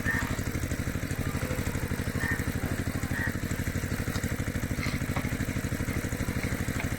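A small motor running steadily, with an engine-like chug of about ten even pulses a second.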